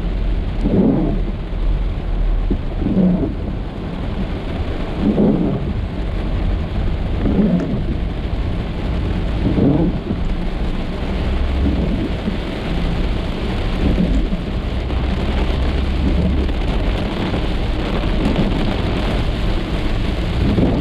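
Heavy rain drumming on a car's roof and windshield, heard from inside the cabin, over a low rumble. The windshield wipers sweep across the wet glass about every two seconds, each pass a short pitched sweep, growing fainter in the second half.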